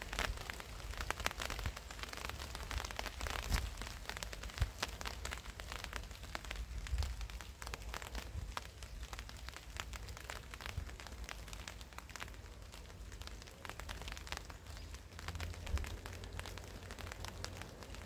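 Rain falling in a garden, with many individual drops ticking sharply on surfaces over a steady hiss and a low rumble underneath.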